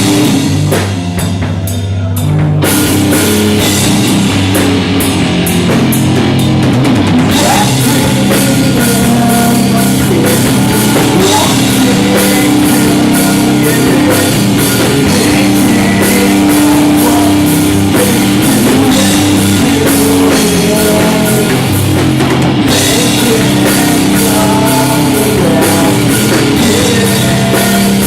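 Live rock band playing an instrumental passage on electric guitar and drum kit; the full band comes in about two and a half seconds in.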